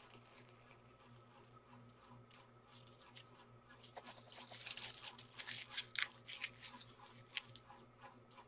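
Faint crinkling and crackling of clear plastic film being peeled and handled, with a thicker run of crackles in the middle.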